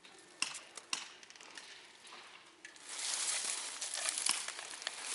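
Dry brush and leaves crunching and rustling, with a couple of sharp snaps near the start, then a louder continuous crackling rustle from about three seconds in.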